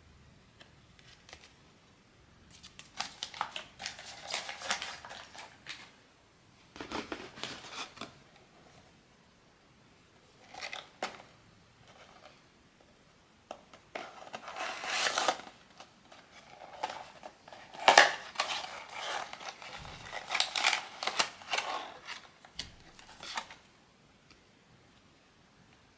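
Blind box packaging being handled and opened by hand: rustling, crinkling and tearing of the wrapping in several irregular bursts, the loudest ones in the second half.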